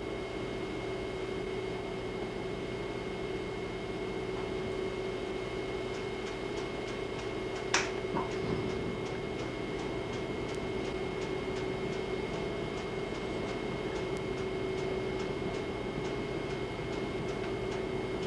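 Steady electrical hum and hiss, with a sharp click about eight seconds in and faint regular ticking, a few ticks a second, through the second half.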